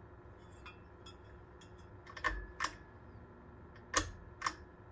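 Light sharp clicks in pairs, about half a second apart: two near the middle and two more about four seconds in, over a quiet room background.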